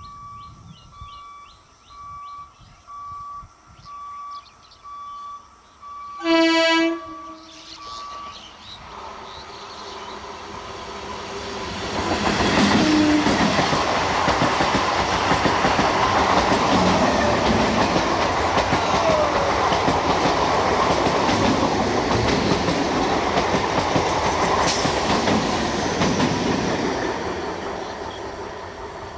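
An electric multiple-unit (EMU) local train sounds its horn once, for about a second, then runs past at speed, its wheel and running noise swelling to a loud rush through the middle and fading near the end. Before the horn, an electronic beep repeats steadily about twice a second.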